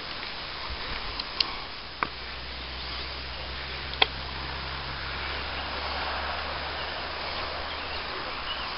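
Steady outdoor hiss of wind and rustling vegetation. Three sharp clicks fall in the first half, the one about four seconds in the loudest, and a low drone runs through the middle.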